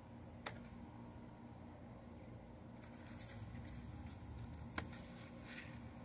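Grape clusters being cut from the vine and handled: two sharp snips of pruning shears, one about half a second in and one near five seconds, with faint rustling of leaves and bunches in between.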